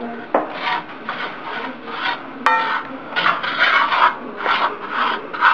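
Wooden spoon stirring and scraping cornflakes in oil around a skillet, in repeated rasping strokes about twice a second. A brief ringing tone sounds about two and a half seconds in.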